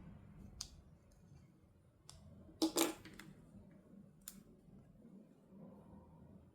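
A few sharp clicks and taps from toys and their packaging being handled. The loudest is a quick double clack about two and a half seconds in.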